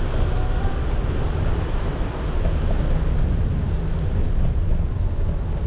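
Steady low rumble of wind buffeting the action-camera microphone while riding an electric scooter over wet paving.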